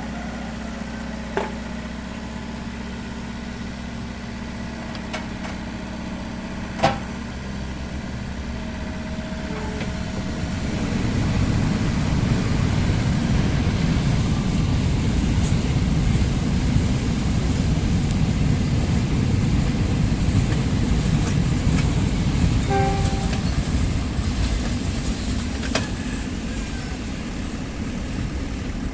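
Excavator diesel engine idling, then running harder and louder from about ten seconds in before easing back near the end. A single sharp metallic knock comes about seven seconds in.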